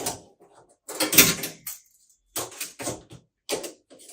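A series of short knocks and rattles from hands working on the display case while its interior height is measured, the loudest clatter about a second in.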